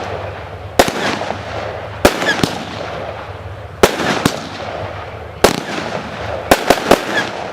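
A 25 mm firework barrage cake firing shots: about nine sharp reports, some coming in quick pairs and a rapid triple near the end, with a hissing, crackling haze between them.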